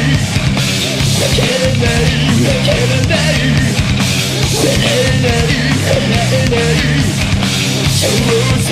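Loud heavy visual kei rock track: a full band with distorted electric guitars, bass and fast drums, and a melodic line weaving over the top.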